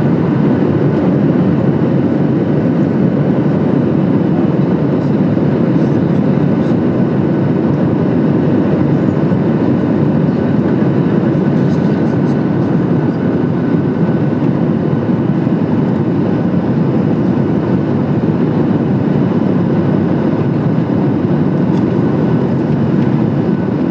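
Steady rumble of a Boeing 737 MAX 8 in flight as heard inside the passenger cabin: engine and airflow noise, even throughout, with a faint steady whine above it.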